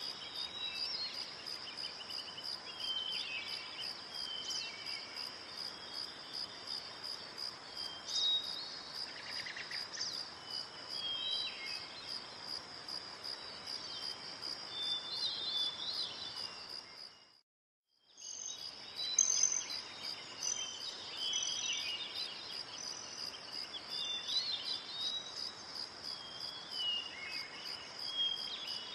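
Steady, rapid, high-pitched chirring typical of crickets, with scattered short chirps over it. It drops out for about a second a little past halfway, then goes on as before.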